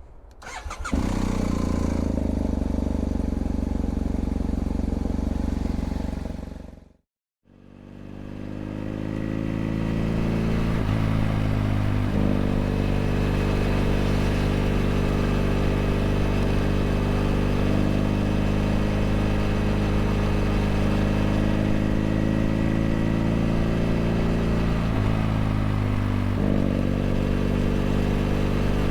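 BMW F800 GS 798 cc parallel-twin engine running through a LeoVince LV ONE EVO stainless aftermarket exhaust, heard onboard while riding at a steady pace. The note is steady, with a few short breaks where it changes. About seven seconds in it fades out to a moment of silence, then fades gradually back up.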